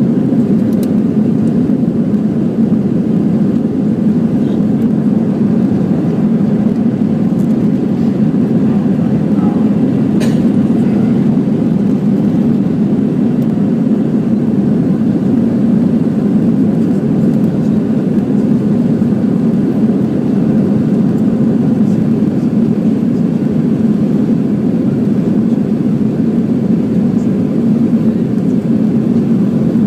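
Airbus airliner's engines and airflow heard as a steady, even roar inside the cabin during the climb after take-off.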